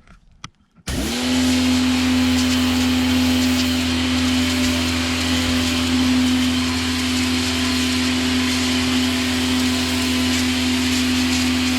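Parkside PHD 110 D1 electric pressure washer starting suddenly about a second in, then running steadily: a constant motor hum under the hiss of the water jet.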